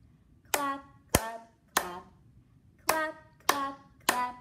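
Hand claps, six in two groups of three about half a second apart, each clap on a sung "clap" in a woman's voice, keeping time in a children's action song.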